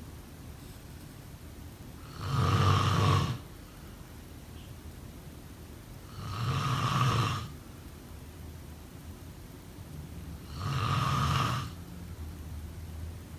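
A sleeping person snoring in slow, regular breaths: three snores about four seconds apart, each lasting about a second, with quiet breathing between them.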